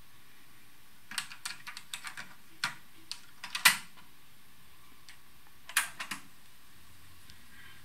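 Plastic clicks and clacks of a cassette being loaded into a Harman Kardon CD 191 cassette deck, ending in the loudest snap as the cassette door shuts. About two seconds later comes a short cluster of clicks as the Play key is pressed and the tape transport engages.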